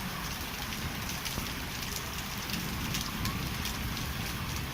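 Hailstorm: a steady hiss of falling rain and hail with scattered sharp ticks of hailstones striking.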